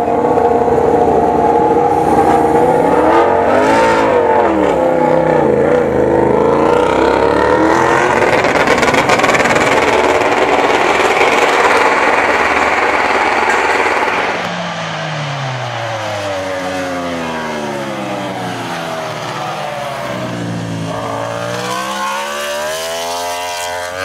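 Yamaha YZR-M1 MotoGP bike's inline-four engine revving hard, its pitch swinging up and down. About two-thirds of the way through it drops in level and slowly falls in pitch, then climbs again near the end.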